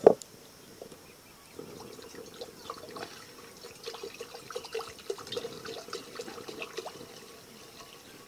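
A metal kadai set down on a clay stove with one sharp clank. From about one and a half seconds in, water is poured steadily into the pan, splashing as it fills.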